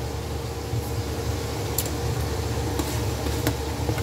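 A steady low mechanical hum with a faint steady tone above it. A few light clicks come from a metal spoon against a saucepan as garlic powder is worked into barbecue sauce.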